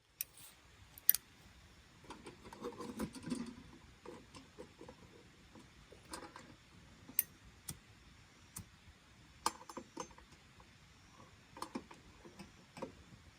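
Scattered sharp clicks and light knocks at irregular intervals, with a stretch of soft rustling about two to four seconds in.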